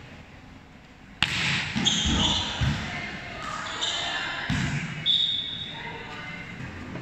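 A volleyball struck hard on a serve about a second in, with a sharp smack that rings on in a large hall. Several duller thuds of the ball and players follow over the next few seconds, along with voices.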